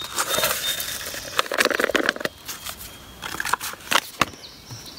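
Crinkling and crackling of a paper drink-mix pouch being handled and opened, with a few sharp clicks; the handling noise is heaviest in the first couple of seconds and then dies down.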